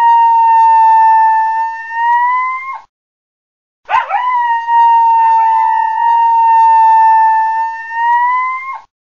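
Coyote howling: two long, steady howls. The first is already under way and cuts off about three seconds in; after about a second of silence the second begins with a brief wavering break in pitch, then holds one even note for about five seconds, rising a little just before it stops.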